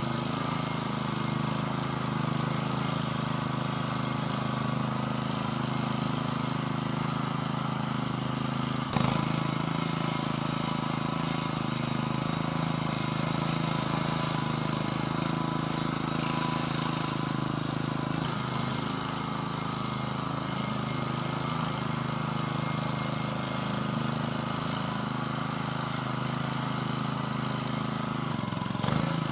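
VARI two-wheel walking tractor engine running steadily under load, pulling a tine cultivator through loose garden soil. A single sharp thump comes about nine seconds in.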